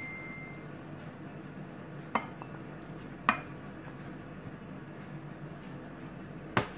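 Light knocks and clinks of a plate and food pieces against a stainless steel mixing bowl: one about two seconds in, another a second later, and a quick double knock near the end.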